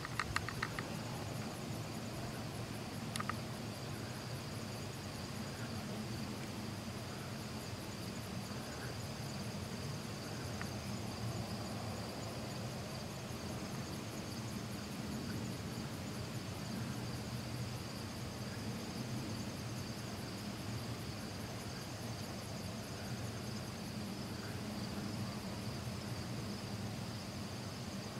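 Insects, crickets among them, trilling in a steady chorus: a constant high trill with a faster even pulsing above it. A low steady rumble lies underneath, with a few faint clicks in the first seconds.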